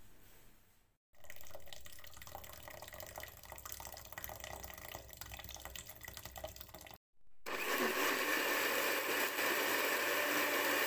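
Water pouring into a plastic blender jug onto dried shrimp. After a short break about seven seconds in, the countertop blender runs steadily and louder, grinding the dried shrimp in the water.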